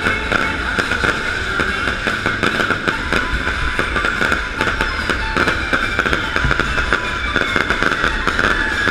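Fireworks going off in a dense, continuous barrage of rapid crackling pops.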